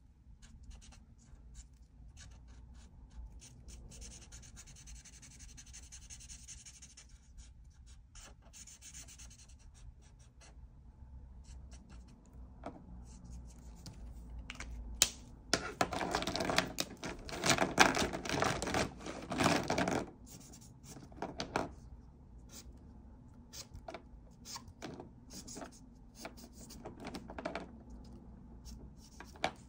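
Art marker nib scratching and rubbing across paper in colouring strokes. Near the middle come several seconds of fast, louder back-and-forth scribbling, and scattered short taps and clicks follow toward the end.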